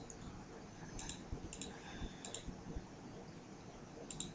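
A few faint, sharp computer mouse clicks, spaced roughly a second apart, over quiet room hiss.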